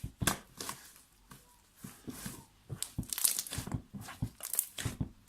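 Hands squeezing and stretching slime: an irregular run of sticky clicks, crackles and small pops, busiest about three seconds in.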